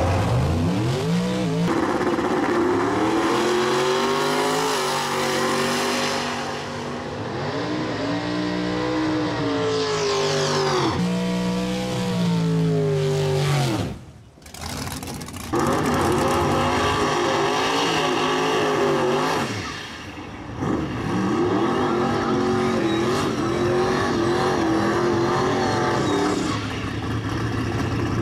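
Drag-race car engine at full throttle, its pitch climbing and dropping back at each gear change as the car runs down the strip. After two abrupt cuts, race engines keep revving at a higher, unsteady pitch.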